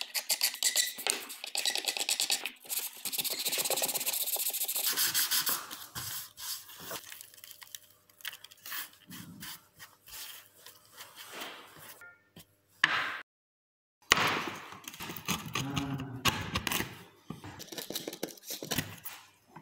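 Hand tools working an olive-wood slab: quick rubbing and scraping strokes at first, then sparser, separate gouge and chisel cuts. There is a brief gap about 13 seconds in, then more chisel strokes shaving the bark edge.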